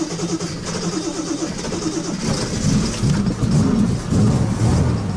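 The carburettor engine of a 1989 Ford Transit Mk3, its carburettor newly fitted, running as heard from inside the cab. From about two seconds in it is revved, rising and falling in pitch.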